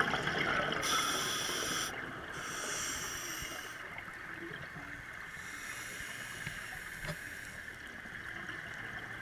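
Scuba breathing heard underwater: three hissing breaths through a regulator with bubbling, over a steady underwater hum, and one small click about seven seconds in.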